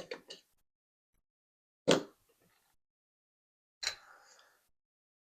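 Three sharp metallic clicks about two seconds apart, the first a short cluster and the last followed by a brief light rattle: a lock core and small tools being handled while the core is taken apart.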